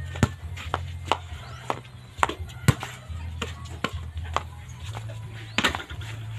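Background music with a deep bass line, and sharp knocks and clicks at irregular intervals.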